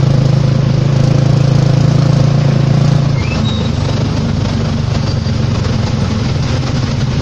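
Engine and road noise of a moving vehicle on a wet road, heard from inside: a steady low engine hum over a wash of tyre and road noise. About three seconds in, the engine note drops and grows quieter.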